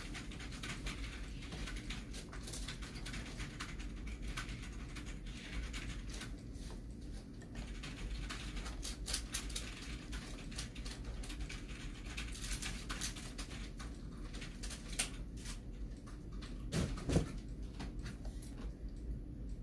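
Irregular light clicks and taps, at times in quick runs, over a steady low hum. Near the end there is one short, louder low sound.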